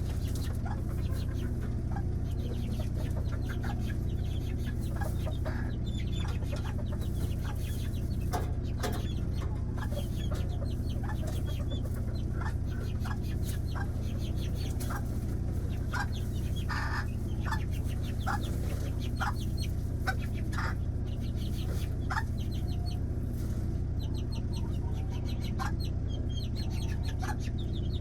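Chickens clucking and calling at feeding time, many short calls scattered throughout, over a steady low hum.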